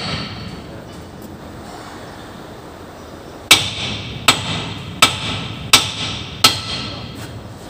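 Hammer blows on steel at a dump truck's leaf-spring suspension. The ring of one blow fades at the start, then after about three seconds come five sharp ringing strikes, evenly spaced about 0.7 s apart.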